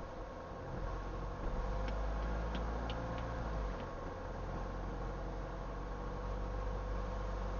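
Car driving on the road: steady low engine and road rumble heard from inside the cabin, with a few light clicks or rattles between about two and four seconds in.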